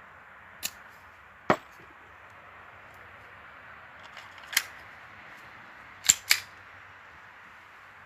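Krytac SilencerCo Maxim 9 gas blowback airsoft pistol firing on green gas: sharp cracks of the shots and the slide cycling. There is a loud one about a second and a half in, and a close pair of loud ones about six seconds in, with lighter clicks between.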